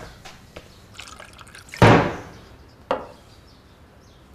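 A wooden door bangs shut about two seconds in with a short ring-out, and a single sharper knock follows about a second later, with a few faint clicks around them.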